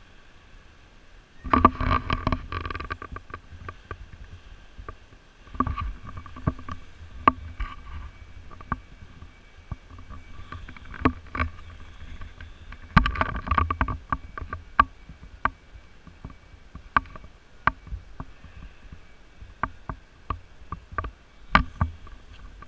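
Handling noise from a GoPro camera being picked up and moved about: irregular clicks, knocks and low rumbling in bursts, loudest about a second and a half in and again about thirteen seconds in.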